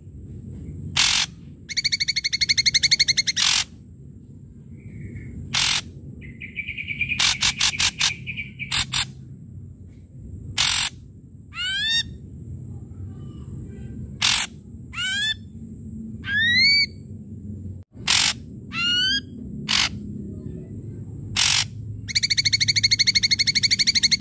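Ashy drongo singing loud and vigorously: short harsh, scratchy notes mixed with rapid buzzing rattles and several quick upward-sweeping whistles, given in irregular bursts.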